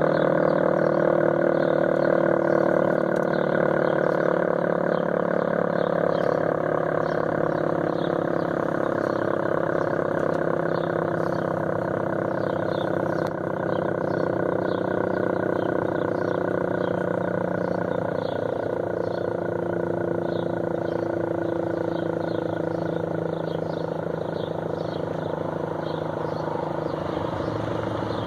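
Federal Signal 500-DH-TT dual-tone rotating outdoor warning siren winding down after its alert signal. Its two tones sink slowly in pitch and level, with a rapid pulsing.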